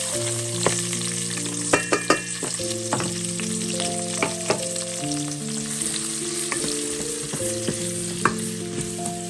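Food sizzling as it fries in a hot pan, with sharp clicks of a utensil stirring it now and then.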